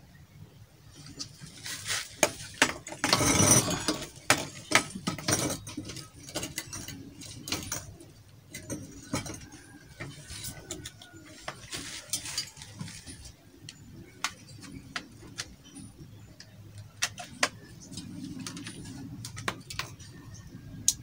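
Clinks, knocks and rattling of the steel pipes, cup and fittings of a homemade waste-oil camping stove being handled and set down, with a dense burst of clatter about three seconds in.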